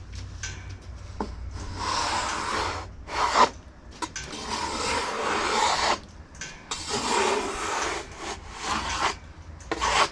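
Repeated scraping strokes on freshly sawn black walnut, in three or four spells of about two seconds each, like sawdust being brushed off a new slab. A steady low hum runs underneath.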